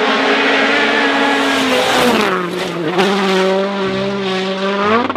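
Race car engine running at high revs; its pitch drops about two seconds in and then holds steady.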